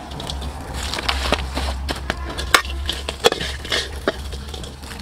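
Tongs turning a tray of crispy fried crabs: irregular clattering and crunching of the hard shells, with sharp clicks against the stainless steel tray, over a steady low hum.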